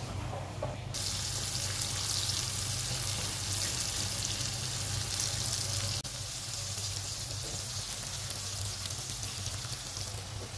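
Sliced onions sizzling as they fry in hot turmeric oil in a small non-stick pan, the sizzle starting suddenly about a second in and running on steadily over a low steady hum.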